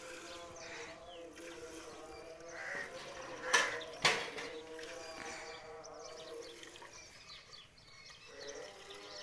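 A cow being milked by hand into a steel pail, with two sharp knocks about half a second apart near the middle, over a steady pitched hum.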